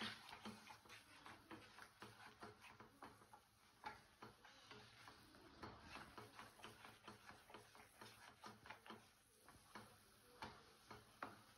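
Faint, irregular soft clicks and pops, several a second, from a kadai of thick tomato paste cooking down while it is stirred with a wooden spatula.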